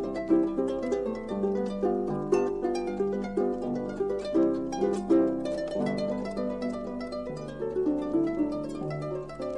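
Solo harp playing a cheerful Alpine dance tune, a quick run of plucked melody notes over a steady bass line, played back from a 1961 vinyl 45 rpm record.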